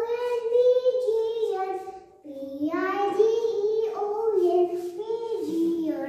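A child singing, two drawn-out sung phrases with a short break about two seconds in.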